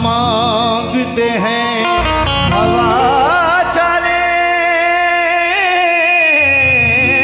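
Qawwali music: a male lead singer sings a wavering, ornamented melodic line with keyboard accompaniment, settling into a long held note in the second half.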